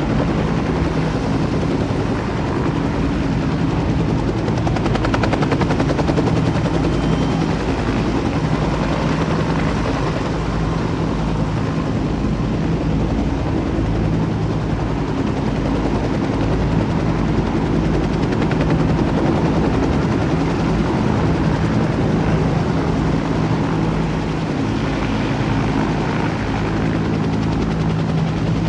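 Helicopter hovering overhead while holding a rooftop HVAC unit on a long sling line. Its rotor beats in a steady rapid pulse over a constant low engine hum.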